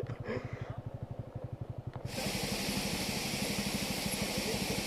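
Motorcycle engine running at low revs with an even pulsing beat. About two seconds in, a steady hiss abruptly joins it and continues.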